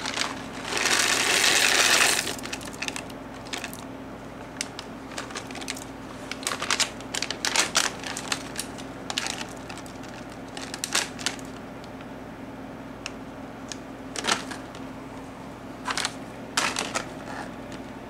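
A plastic bag of shelled sunflower seeds crinkling and being shaken out into a glass blender jug, the seeds falling in with scattered small clicks. A louder rustle of the bag comes about a second in.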